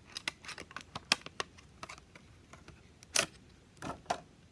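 A pack of false eyelashes being opened by hand, cardboard box and plastic lash tray: a string of small clicks and taps, with a louder scrape about three seconds in and two more short ones near four seconds.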